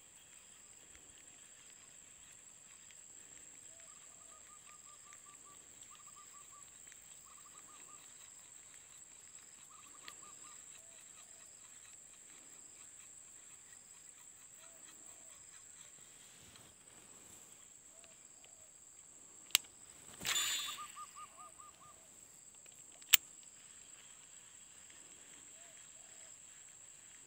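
Baitcasting reel cast: a sharp click, then a burst of about a second as the line pays out and dies away, then a second sharp click as the reel is engaged again. Behind it is faint open-air ambience: a soft hooting call repeated every couple of seconds, a few faint trills and a steady high whine.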